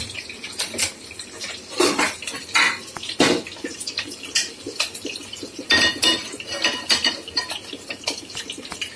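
Metal cookware clinking and knocking on a gas stovetop: a string of separate sharp knocks, one about six seconds in ringing briefly, as a frying pan is set on the burner.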